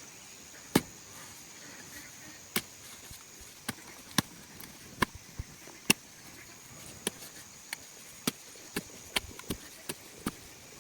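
A blade chopping in a series of sharp, irregular strikes, coming faster in the second half.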